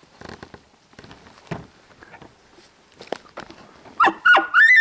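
Footsteps and brush rustling on the forest floor, with a few twig snaps. About four seconds in, a loud series of short, high-pitched animal calls begins, each note rising and falling, repeated about twice a second.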